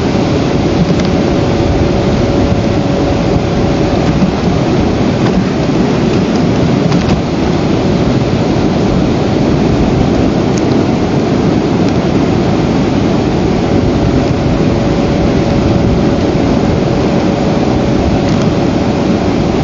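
A loud, steady rushing noise at the outdoor nest camera's microphone. A faint, steady thin tone sounds through it for the first few seconds and again in the last few.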